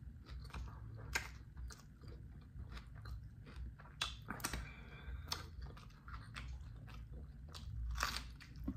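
Close-miked eating sounds: a person chewing a taco lettuce wrap, with irregular wet mouth clicks and smacks as fingers are licked and sucked clean.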